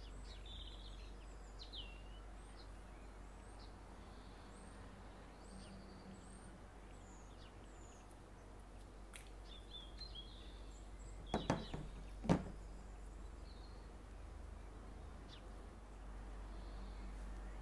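Small birds chirping faintly in the background over a steady low hum. About two-thirds of the way through comes a quick cluster of sharp clicks as the perfume bottle's cap is pulled off.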